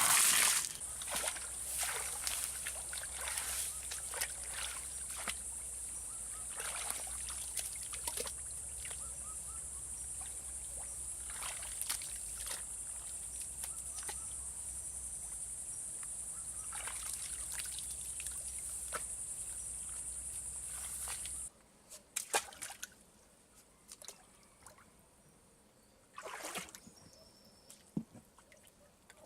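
Small splashes and trickling water in a fish pond over a steady low hum and high hiss; about two-thirds of the way through the hum and hiss cut off suddenly, leaving only occasional drips and small splashes.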